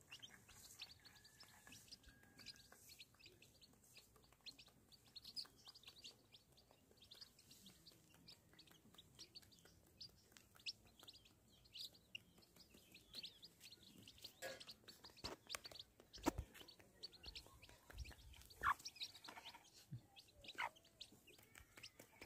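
Chicks peeping faintly and continuously, many short high chirps overlapping one another. A few soft knocks come in the second half.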